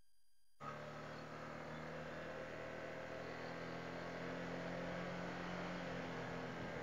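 Honda ADV160 scooter's single-cylinder engine running at a steady cruise under way, with wind and road noise. The sound cuts in about half a second in after a brief silent gap.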